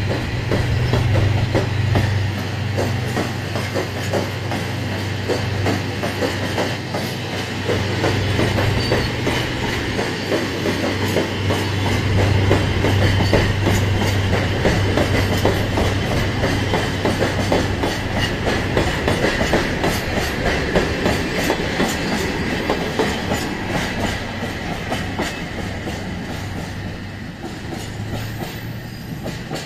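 Freight train of cement tank wagons pulling out and rolling past, with dense clickety-clack of the wheels over the rail joints above a steady low rumble. The sound fades over the last several seconds as the end of the train draws away.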